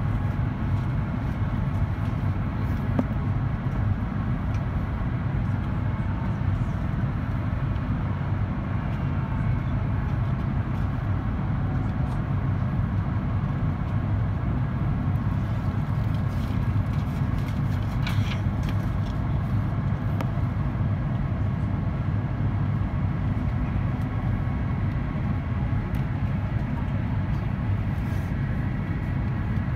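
Steady low rumble inside the cabin of an Airbus A350-941 in descent: the wing-mounted Rolls-Royce Trent XWB engines and the airflow, heard from a window seat over the wing, with faint steady tones above the rumble. A single faint click comes about two-thirds of the way through.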